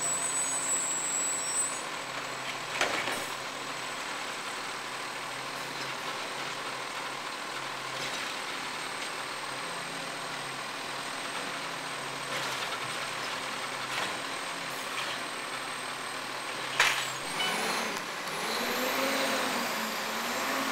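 Garbage truck's diesel engine running steadily. There are two short, sharp sounds, about three seconds in and again near the end. In the last few seconds the engine revs rise and fall as the truck drives off.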